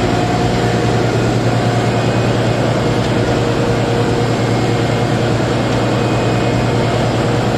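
Fishing trawler's diesel engine and machinery running steadily while the boat tows its bottom trawl, a constant loud low hum under a wide noisy hiss.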